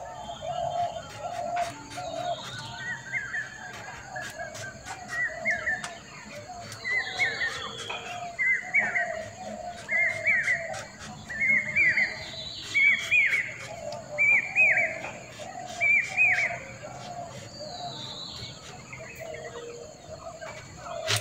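Birds calling: a short rising-and-falling chirp repeated about once a second, with a few downward-sliding calls above it and a row of lower calls beneath. Faint clicks come through here and there.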